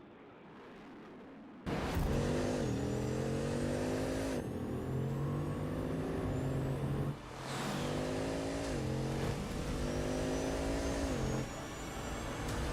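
A faint low rumble, then, abruptly from about two seconds in, a car engine accelerating hard. Its pitch climbs and falls back again and again, as at gear changes, broken by sudden cuts between shots.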